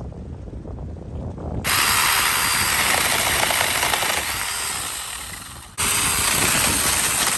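Battery-powered 6-inch mini chainsaw running and cutting wood. The harsh saw noise comes in loud about a second and a half in, falls away briefly late on, and comes straight back.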